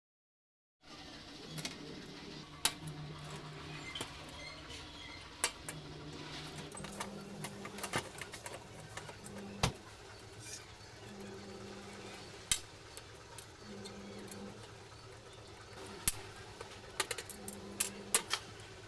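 Scattered sharp metallic clicks and clinks, like tools and small metal parts being handled, over a low hum that comes and goes.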